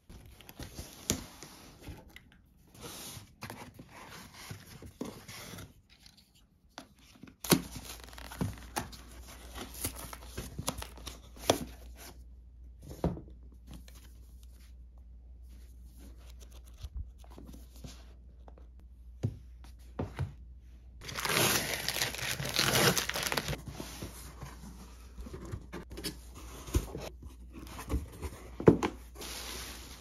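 A cardboard parcel being unpacked by hand: scattered knocks, taps and rustles of cardboard and paper, with one long tearing sound about two-thirds of the way through.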